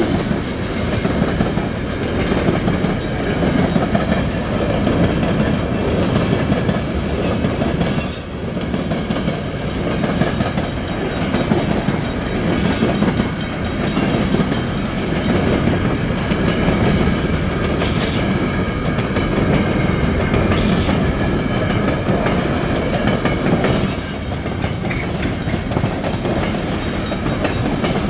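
CN gypsum freight train rolling steadily past, its wheels clicking over the rail joints with faint high wheel squeal now and then.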